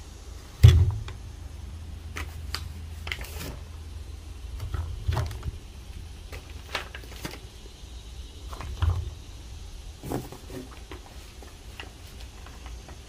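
Boxes of fireworks being handled: a heavy thump about a second in, lighter thumps near five and nine seconds, and scattered knocks and clicks over a low steady rumble.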